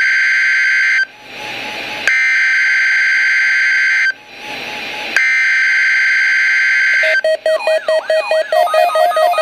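NOAA Weather Radio EAS (SAME) header: a loud, shrill digital data burst about two seconds long, sent three times with about a second of radio hiss between, marking the start of a Required Weekly Test. About seven seconds in, a rhythmic electronic tune of repeated falling tones begins.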